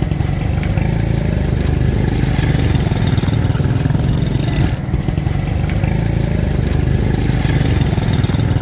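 A small engine idling steadily: a low, even rumble with a rapid firing pulse.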